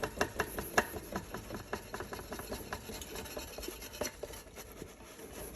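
The outer sleeve of a Bentwood burr grinder rubbing and scraping as it is worked down off the grinder body, with many irregular clicks and taps that thin out after about two seconds.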